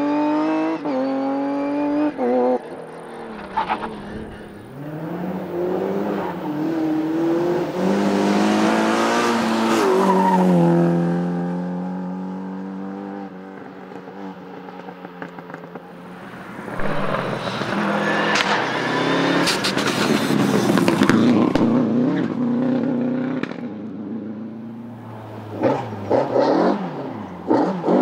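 Rally cars at full throttle, engines climbing in pitch through quick gear changes and dropping away as they pass. A second car comes through with loud engine and tyre noise, and there are sharp cracks of gearshifts and lift-off near the end.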